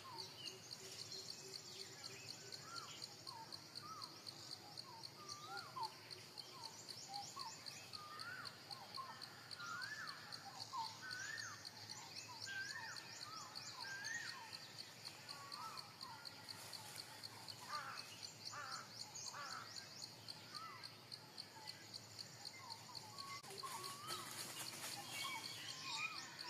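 Many small birds chirping in short rising and falling notes, over a steady high-pitched insect buzz.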